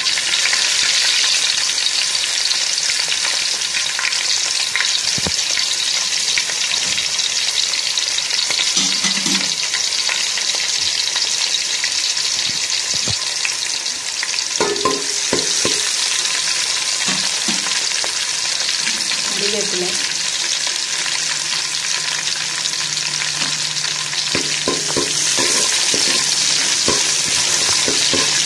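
Chopped onions and fenugreek seeds frying in hot oil in a pot: a steady sizzle, with a few light knocks along the way.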